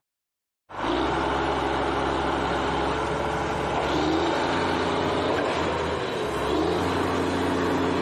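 A motor-vehicle engine running steadily, with a few low held tones under a dense noise. It starts abruptly from silence a little under a second in and stays at an even level.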